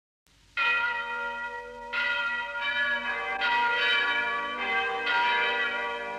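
Church bells ringing, a new stroke about every one and a half seconds after a short silence at the start, each stroke ringing on into the next.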